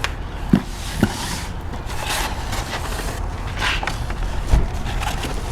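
A plastic New Beetle door panel being handled and turned over on a work surface: two knocks about half a second and a second in, scraping and shuffling, and another knock near the end.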